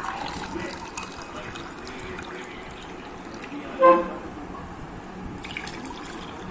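Drink poured from a jug into glass tumblers, a steady splashing fill. A single short, loud, horn-like toot cuts in about four seconds in.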